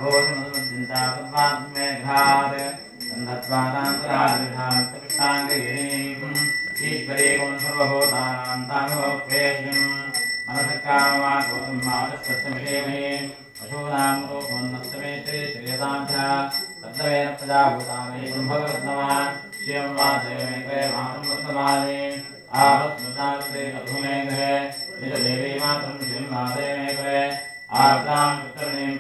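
A man chanting Sanskrit puja mantras in long, even phrases, with a hand-held puja bell ringing without a break under the chant.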